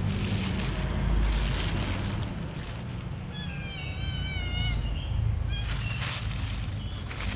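Thin plastic bag crinkling and rustling as a hand works at it, in bursts at the start and again near the end. In the middle, a drawn-out, wavering cat meow.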